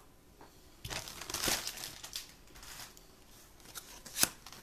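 Packaging around a simmer pot being pulled out and handled: about two seconds of crinkling and rustling starting about a second in, then a single sharp click near the end.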